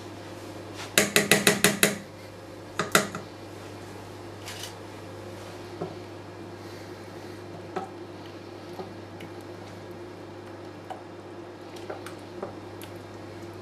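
Wooden spoon knocking and stirring in a stainless steel soup pot: a quick run of about seven knocks about a second in, a few more shortly after, then only scattered light taps as the soup is stirred. A steady low hum runs underneath.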